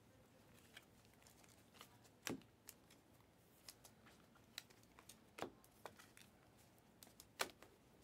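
Faint clicks and flicks of a stack of glossy Panini Prizm trading cards being slid one behind another in the hands, with a few louder clicks about two, five and seven seconds in.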